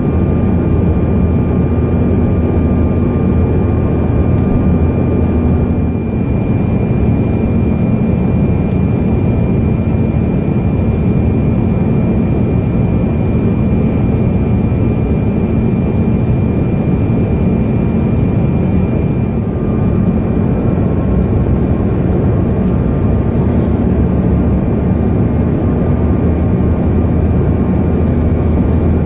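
Steady cabin noise of a jet airliner in flight, heard from inside the cabin: a deep even rumble of engines and airflow with a faint high whine held at one pitch. The low hum shifts slightly twice, at about six and twenty seconds.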